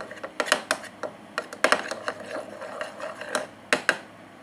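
A spoon stirring and scraping thick glue-and-baking-soda slime in a small pot, with irregular sharp clicks and taps, stopping shortly before the end.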